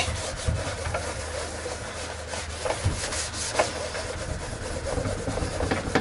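Damp microfiber cleaning cloth scrubbed back and forth across the inside of a microwave door, a steady rubbing hiss.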